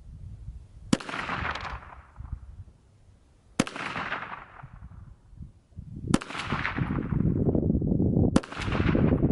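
Four single shots from a KelTec PMR-30 .22 Magnum pistol, fired slowly about two and a half seconds apart, each followed by a short fading echo.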